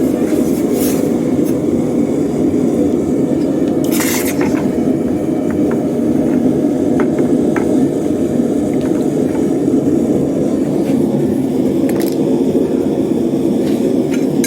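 Forge running with a loud, steady rushing noise while metal heats in it, with a few short metallic clinks and one brief louder burst about four seconds in.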